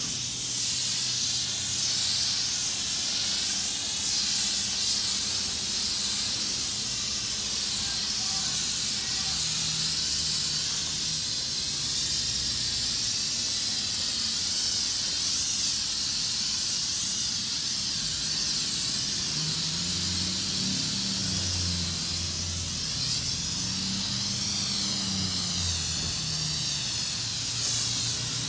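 Self-serve car wash spray wand on the pre-soak setting, hissing steadily as it sprays pre-soak onto a car's paint and wheel.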